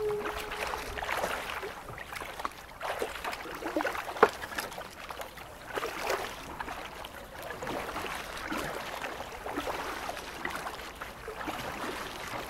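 Kayak paddle strokes: water splashing and dripping off the blades in an irregular run. About four seconds in there is a single sharp knock.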